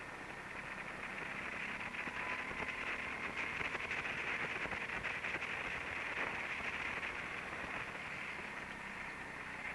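Go-kart at speed heard from an onboard camera: a steady rushing hiss of wind and tyres with a faint motor whine, louder in the middle of the stretch as the kart runs down the straight, then easing toward the next turn.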